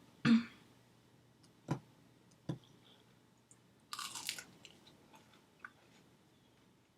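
Close-up eating sounds: a few sharp mouth clicks, then a crunchy bite about four seconds in, followed by soft chewing.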